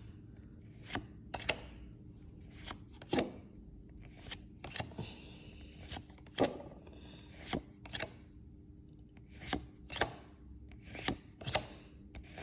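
Pokémon trading cards being flicked through one at a time, each card sliding off the stack with a short papery snap. The snaps come irregularly, about one or two a second.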